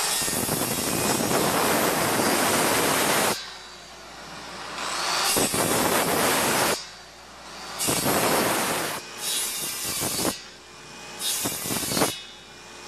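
Sidewinder circular saw cutting through a wooden board. One long cut of about three seconds is followed by four shorter bursts, the saw dropping away between them.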